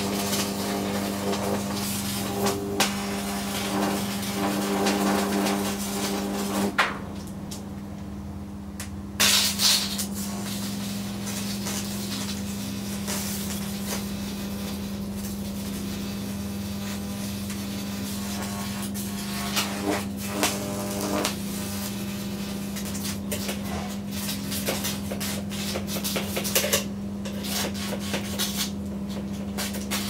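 Unballasted microwave oven transformer humming steadily under heavy load while its high-voltage output arcs and crackles across a plasma TV panel, burning it. The crackling drops out for a couple of seconds about a quarter of the way in, then comes back with a loud burst, while the hum carries on.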